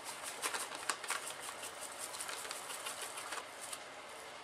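Crinkling of the instant pudding mix's inner bag as the dry powder is shaken out into a mixing bowl: a quick run of small rustles and crackles that thins out near the end.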